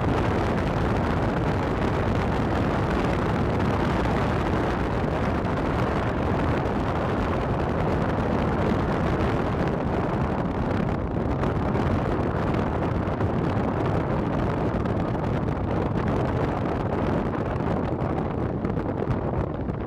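A vehicle driving on a mountain road: the steady rumble of engine and tyres, with wind buffeting the microphone. The noise eases slightly and turns uneven near the end.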